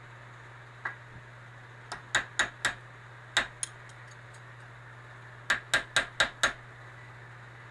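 Hammer tapping on a metal punch against a floor jack's hydraulic unit, trying to knock a part loose. Sharp, separate taps: a few scattered ones, then a quick run of five near the end.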